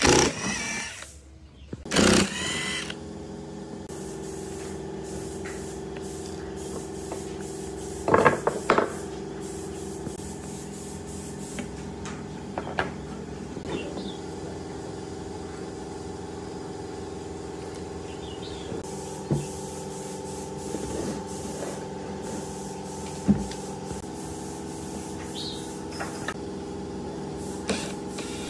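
An electric drill fitted with a screwdriver bit running in two short bursts, backing screws out of a speaker driver's rim. After that comes a steady drone of several held tones that shift in pitch every few seconds, with scattered clicks and knocks of tools on the speaker cabinet.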